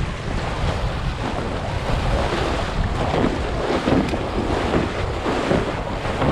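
Wind buffeting an action camera's microphone over the rush and splash of water under a windsurf board sailing fast across the sea, a little louder around three to four seconds in.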